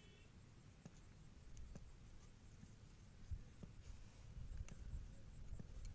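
Faint crackling and scratching as peanut pods are split and shelled between fingers, with scattered small clicks, over a low rumble.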